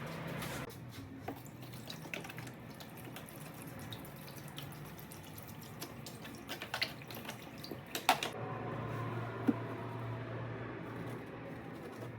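Water running and splashing, with scattered small clicks and knocks of handling, a sharper knock about eight seconds in, and a low steady hum coming in just after it.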